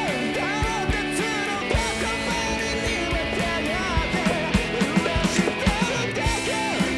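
Background rock music with electric guitar, a drum beat and a singing voice.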